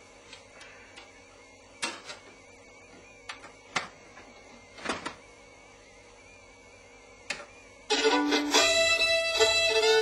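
A few sharp clicks and knocks from equipment being handled in a TV cabinet. Then, about eight seconds in, music with violin and plucked strings starts suddenly.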